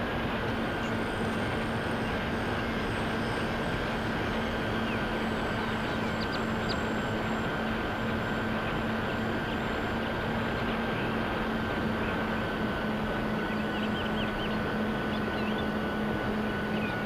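Electric motors and propellers of a Dynam Skybus (DC-3) RC model plane in flight, giving a steady drone with a higher whine above it. The sound is picked up on board, with heavy wind rush over the microphone.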